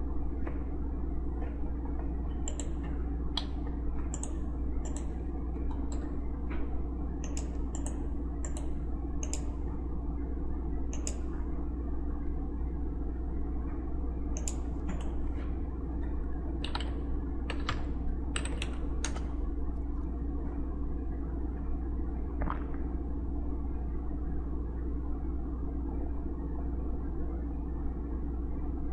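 Scattered clicking of a computer keyboard, single keystrokes and short runs over the first twenty seconds or so, then stopping. A steady low hum sits underneath.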